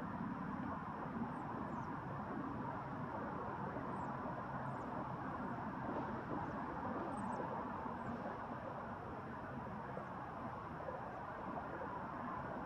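Steady background noise with a low hum. A few faint, brief high chirps come now and then.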